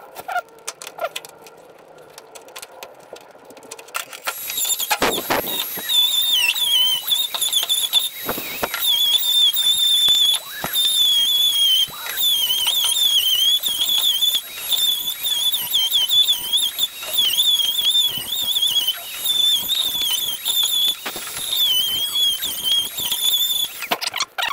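Dremel rotary tool grinding metal, its high whine dipping and recovering over and over as the bit bears on the metal, to open up misaligned body bolt holes. It starts about four seconds in, with a few sharp knocks early on the grind.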